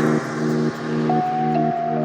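Background music: a soft ambient electronic track of held synth chords that change about every half second, with a high sustained note joining about halfway through.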